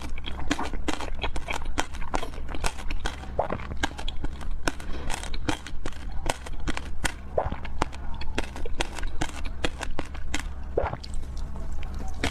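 Close-miked chewing of a soft filled cake: a dense run of wet mouth clicks and smacks, with a steady low hum underneath.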